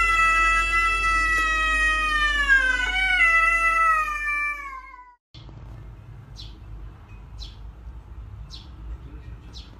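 A grey cat's long, drawn-out meow, its pitch slowly falling, cut off about five seconds in. After that, quieter, a run of short high chirps about once a second.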